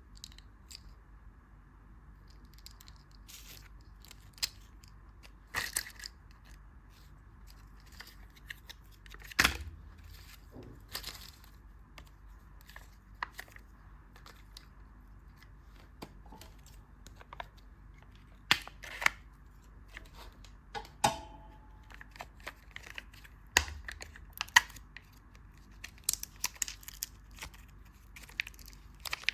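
Candy wrappers being torn open and crinkled in irregular sharp crackles and rips, with a few louder snaps.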